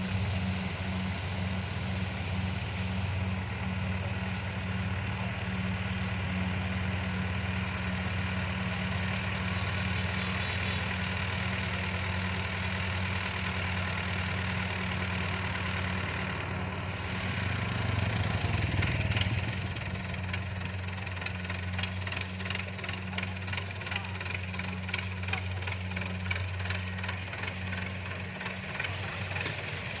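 Kubota DC-70 combine harvester's diesel engine running steadily under load, with a brief swell about two-thirds of the way through, after which a fast, even mechanical clatter joins in.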